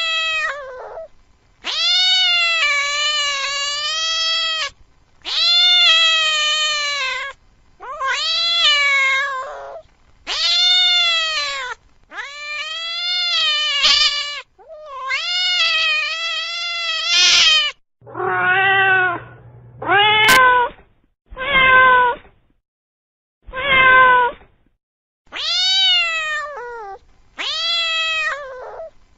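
Domestic cat meowing over and over: long, drawn-out meows of one to three seconds each that rise and fall in pitch, with short pauses between them. Around the middle come a few shorter, more muffled meows, the first with a low hum beneath it.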